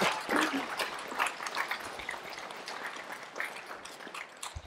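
Congregation applauding, the clapping thinning out and fading away.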